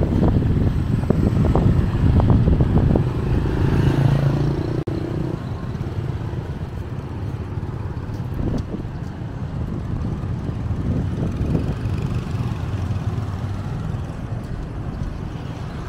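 Motorbikes and a pickup truck passing on a town street, loudest in the first five seconds with a short engine hum, then a steadier low rumble of traffic.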